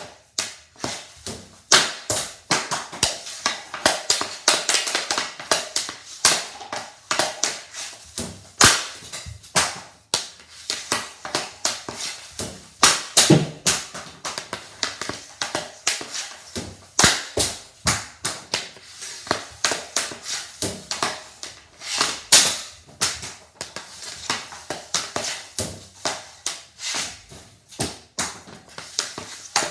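Rapid series of hockey shots: sharp clacks of the stick blade striking the puck and of pucks rebounding off the triangle passer's bungees, taken as quick-release shots and one-timers, many impacts a second.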